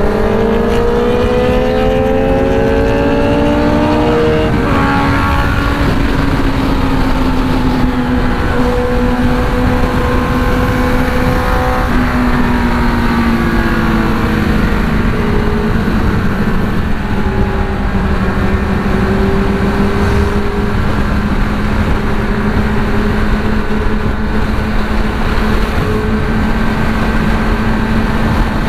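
Motorcycle engine pulling hard, its pitch climbing, then dropping with a gear change about four seconds in. It climbs again, then settles to a steady cruise, over a constant rushing noise of riding at speed.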